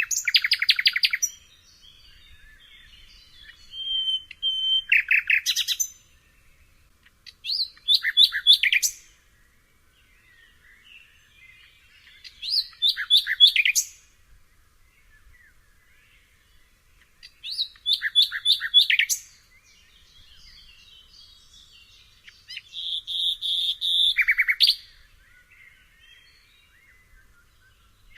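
Nightingale singing: about six short phrases of rapid repeated notes and sharp whistles, each a second or two long, with pauses of a few seconds between them. One phrase near the end opens on a held note before breaking into fast notes.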